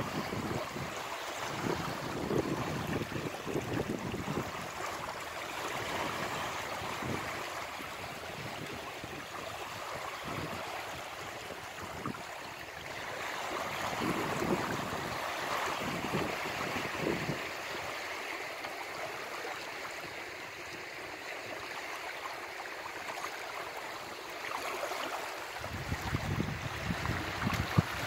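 Small sea waves lapping and washing in over the stones at the water's edge, a continuous wash of water that swells and eases.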